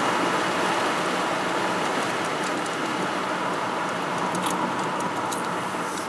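Steady road and engine noise heard inside a moving car's cabin, with a few faint ticks in the second half.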